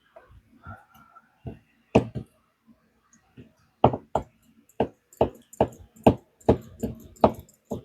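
Metal keys of an Eklind metric folding hex key set clicking against the handle as they are swung open and shut to work 3-in-1 oil into the pivot. There is a single loud click about two seconds in, then a steady run of about two to three clicks a second through the second half.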